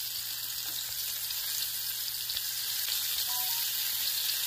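Rava-coated prawns shallow-frying in hot coconut oil in a nonstick pan: a steady sizzle that grows slightly louder.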